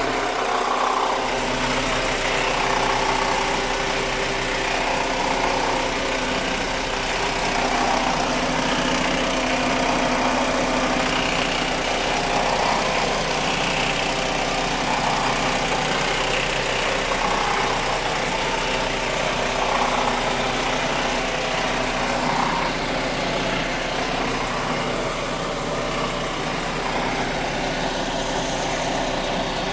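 Volkswagen Jetta Mk5's 2.5-litre five-cylinder engine idling, with a snoring sound that swells and fades about every two to three seconds. The owner hears this snore only at low revs, from inside the engine, and is unsure whether it is normal.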